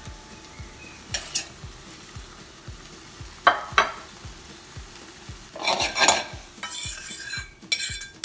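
Cooked asparagus and mushrooms being picked and tipped out of a small stainless steel pan over the heat, with sizzling in the pan. A few sharp metal knocks and scrapes against the pan: one about a second in, two close together a little later, a scraping burst past the middle, and a quick run of clatters near the end.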